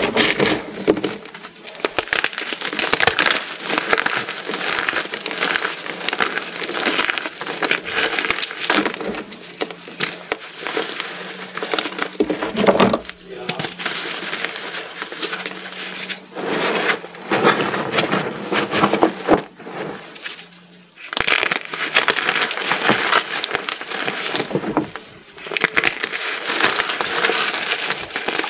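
Many small pieces of pressed gym chalk being crushed together, a dense, continuous crunching and crumbling that eases off briefly twice.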